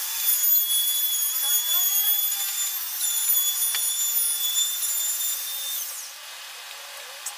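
Handheld corded power tool cutting plywood: a steady high motor whine for about six seconds, then the pitch drops as the tool is switched off and winds down.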